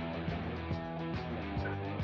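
Background music: a guitar track with a steady beat.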